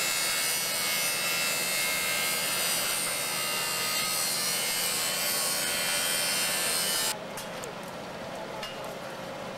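Bench grinding wheel grinding the edge of a forged steel rotary slotter knife: a steady hissing grind with a thin high whine. It cuts off suddenly about seven seconds in, leaving a fainter hiss with a few light clicks.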